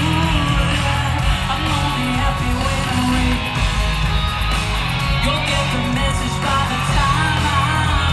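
Live rock band playing loud through a concert PA: electric guitar, bass and drums, with a woman singing in the later seconds.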